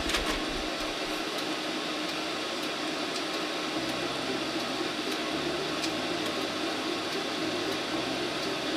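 Old desktop PC running, its power-supply and case fans giving a steady whir, with a few faint clicks and a low hum that comes and goes from about four seconds in.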